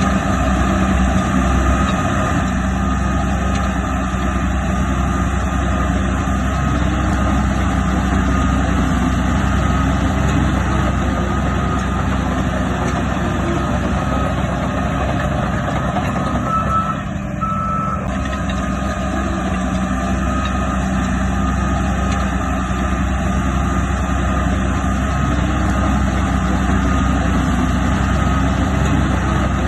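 Heavy diesel earthmoving machinery running steadily, with a vehicle reversing alarm beeping over the engine.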